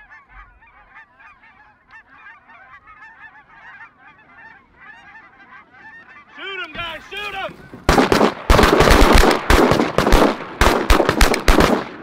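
A flock of Canada geese honking in a steady chorus, with a few louder honks about six and a half seconds in. About eight seconds in a rapid volley of shotgun fire from several hunters breaks out, many shots over about four seconds.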